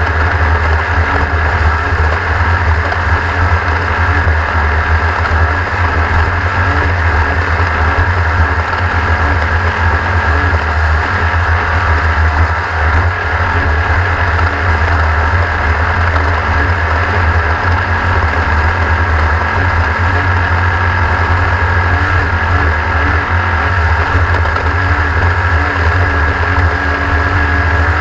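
Racing vehicle's engine running steadily at speed under a heavy, continuous low rumble, with no marked revving up or down.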